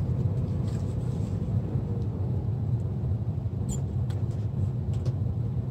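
Steady low background rumble, with a few faint clicks as the clock radio's circuit board and plastic case parts are handled.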